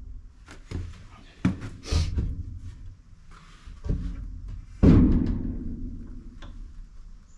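Wooden shelf boards knocking and thudding against the uprights and the corrugated steel wall of a shipping container. There are several separate knocks, the loudest about five seconds in, each ringing on briefly in the hollow container.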